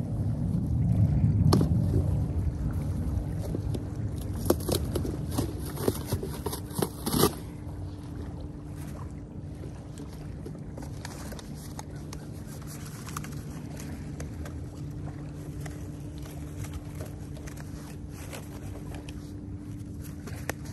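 A steady low motor hum, with a low rumble over the first few seconds and a few sharp clicks between about four and seven seconds in.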